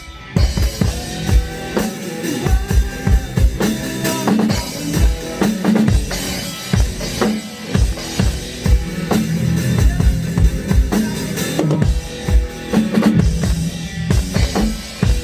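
Drum kit played in a continuous groove, with kick drum and snare hits in close succession.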